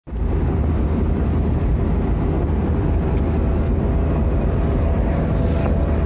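Road and engine noise heard from inside a vehicle cabin at freeway speed: a steady low rumble.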